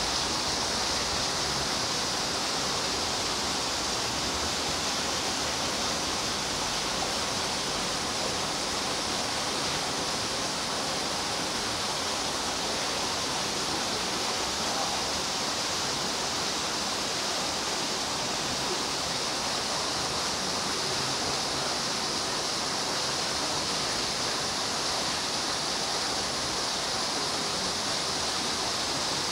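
A steady, even rushing noise that does not change, strongest in the high hiss range.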